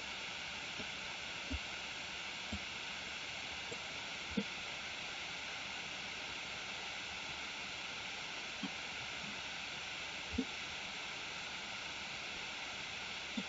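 Steady hiss of recording noise with a few soft, low thumps scattered through it.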